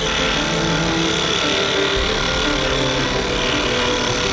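Ryobi scroll saw running steadily, its reciprocating blade cutting through a wooden board.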